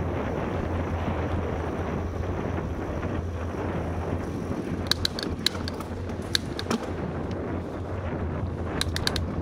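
Wind buffeting the microphone and tyre noise from a bicycle riding along a paved towpath, as a steady rush. A few sharp clicks or rattles come about halfway through and again a cluster near the end.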